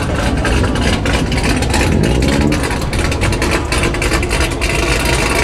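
A car engine idling steadily at a constant level.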